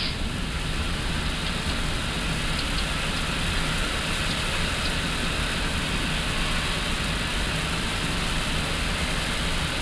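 Airbus A350-900 flight-deck background noise, the aircraft stopped with its engines at idle: a steady, even hiss of airflow with a low rumble underneath.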